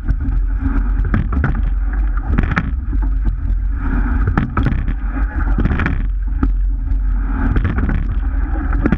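Sweep-oar rowing shell under way: water rushing and splashing along the hull and oar blades, with repeated sharp knocks from the oars and rigging through each stroke over a steady low rumble.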